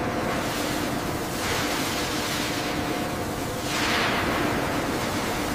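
Steady rushing noise of heavy industrial machinery with a faint low hum, swelling twice, about a second and a half in and again near four seconds.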